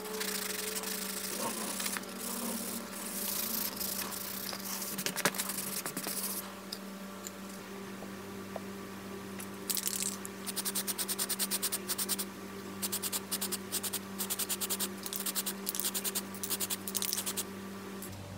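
Hand scraping and sanding on a small black bench-grinder housing part, with one sharp knock about five seconds in. Later come short runs of fast, rhythmic hissing bursts as the part is spray-painted glossy black, all over a steady low hum.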